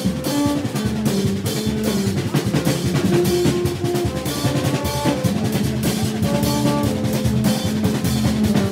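Live Haitian rara-style band: drums, a snare and a hand cymbal beating a fast, dense rhythm under long held notes from blown tube horns, the notes changing every second or so.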